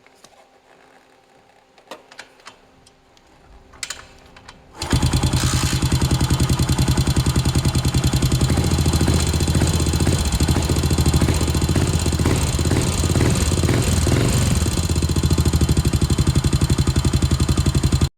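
A few faint clicks, then about five seconds in a Yamaha SR400's single-cylinder four-stroke engine comes in suddenly and runs with an even, rapid beat.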